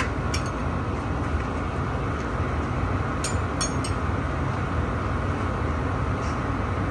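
Steady low rumbling background noise with a few light clicks, about a third of a second in and twice more a little after three seconds in.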